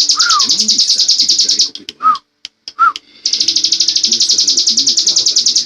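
Ciblek gunung (a prinia) singing its 'ngebren' song: a very fast, high-pitched buzzing trill of rapidly repeated notes that breaks off for about a second and a half and then starts again. Short lower chirps sound at the start and in the pause.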